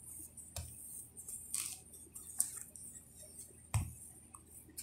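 Wooden rolling pin rolling out pizza dough on a countertop: soft rubbing with a few scattered clicks and knocks, the loudest a single knock a little before the end.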